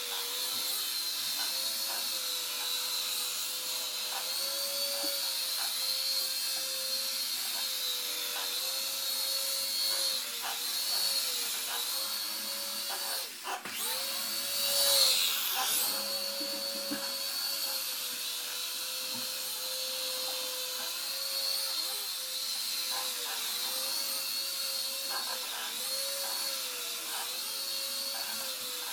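Small electric motors and rotors of an Air Hogs Helix 360 remote-control flying toy, whining steadily, the pitch dipping and recovering several times. About halfway through the sound cuts out briefly and then swells louder for a moment.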